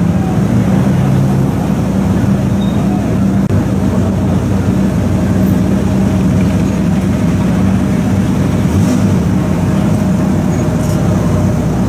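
Ferrari F40's twin-turbo V8 running steadily at low revs as the car creeps forward, a deep even engine note with no revving.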